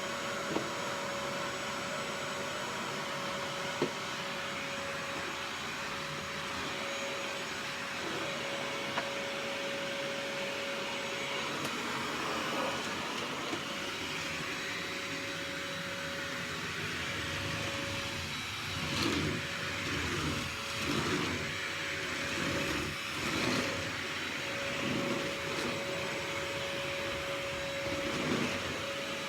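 Vacuum cleaner running with a steady motor whine. From about two-thirds of the way in, its sound swells and dips roughly once a second as it is worked back and forth over the floor. A few light knocks come in the first ten seconds.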